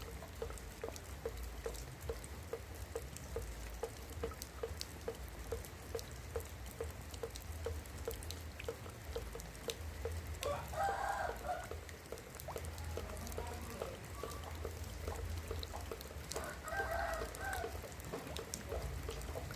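Rain dripping on roof tiles: a steady ticking about three times a second, with scattered sharper drop clicks over a low rumble. A bird calls twice, about ten and seventeen seconds in.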